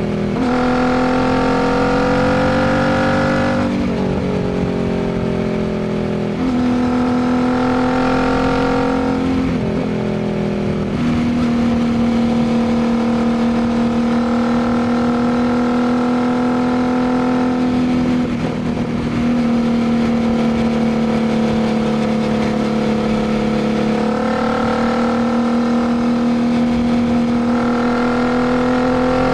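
2019 Royal Enfield Continental GT 650's 648 cc parallel-twin engine running through a Diablo full exhaust under way. The exhaust note climbs and drops at several gear changes and holds a steady cruising pitch for long stretches between them.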